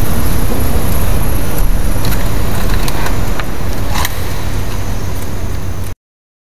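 Dense, noisy passage of a sped-up K-pop track over a steady deep bass, with a few sharp clicks. It cuts off suddenly about six seconds in, as the track ends.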